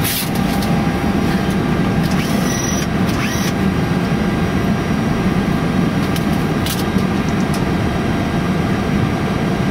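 Steady cockpit noise of an Airbus A321 taxiing, its engines at idle thrust and the cockpit air conditioning running, a low even rumble with a few faint steady tones above it. A few light clicks sound around the start, at about three seconds, and just before seven seconds.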